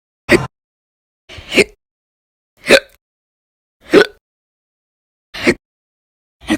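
A woman hiccuping repeatedly: about six short, sharp voiced hiccups, a little over a second apart.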